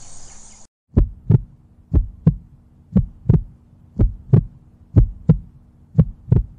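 Heartbeat sound effect: pairs of deep thumps, lub-dub, about once a second over a faint steady hum. It starts about a second in, after the outdoor sound cuts off abruptly.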